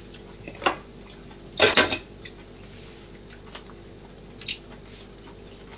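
Chopsticks and ceramic plates clinking: one click about half a second in, a loud cluster of three or four clinks near the two-second mark, then a few faint ticks, over a faint steady hum.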